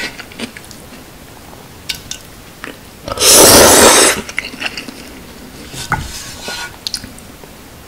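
Ramen noodles slurped loudly once, about three seconds in, for about a second. Before and after it, chopsticks click and scrape against a thin aluminium pot and its lid.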